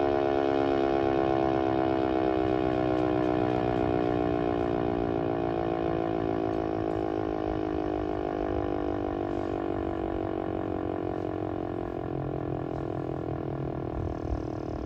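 Outdoor tornado warning siren winding down. Its tones slide slowly down in pitch as it gradually fades.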